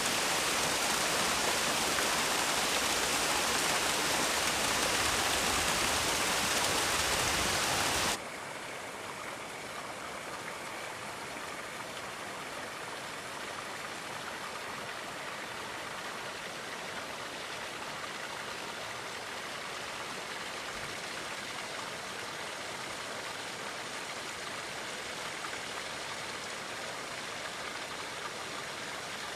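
Thermal spring water splashing down a small waterfall over rock, a loud, steady rush. About eight seconds in it drops suddenly to a quieter, softer rush of water.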